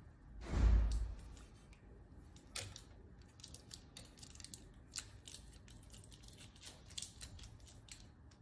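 Scattered small clicks and taps as hands handle a small electric motor with a chuck on its shaft, mounted on a clear plastic beam. There is one louder, dull thump about half a second in.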